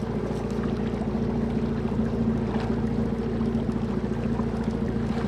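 Boat engine running steadily while trolling, a low even hum over the rush of water.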